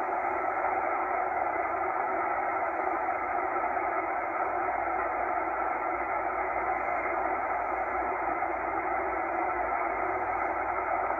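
Shortwave band noise from a Tecsun H-501X receiver in upper sideband mode as it is tuned through the 8 MHz band: a steady rushing hiss with the highs cut off, and no station coming through.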